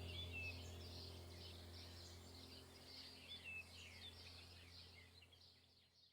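Songbirds chirping and warbling in quick, high notes over a low steady hum, the whole fading out gradually toward the end.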